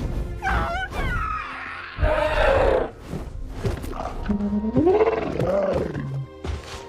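Animated film dragons calling: several warbling chirps and growling roars that rise and fall in pitch, over background film score music.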